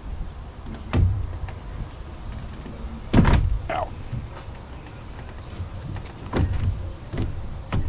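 Several thumps and knocks as a CR Laurence T-vent window frame is pushed and worked into the cut opening in a Ram ProMaster's sliding door. The loudest knock comes about three seconds in.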